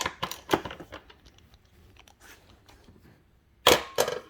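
Sharp plastic clicks and snaps as a motorcycle's plastic side fairing is pulled off its clips. There are a few clicks at the start, faint handling ticks, then a louder cluster of snaps near the end.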